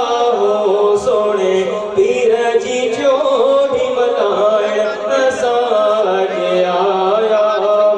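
A male voice sings devotional naat recitation into a microphone in long, melodic, ornamented phrases over a steady low drone.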